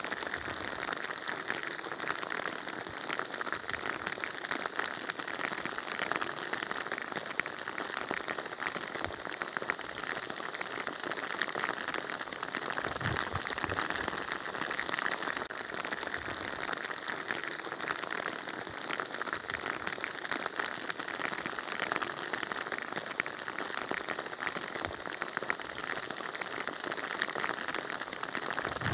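Rain falling steadily: an even hiss of many small drops.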